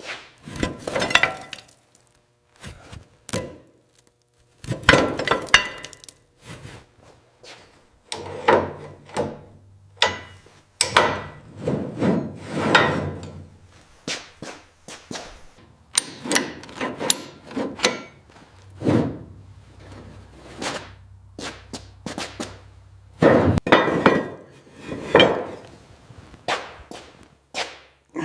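Hand-tool work: a long run of irregular knocks, taps and scrapes, with no steady rhythm.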